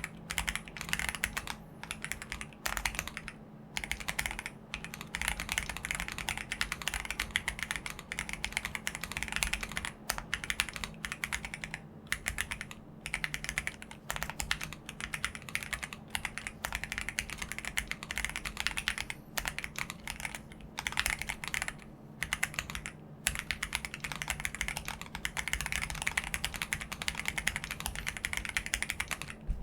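Fast typing on a Tiger80 Lite tenkeyless mechanical keyboard with stock Gateron CJ linear switches, a PC plate, plate and case foam with a tape mod, and DCX keycaps. Keystrokes follow one another rapidly, broken by a few brief pauses.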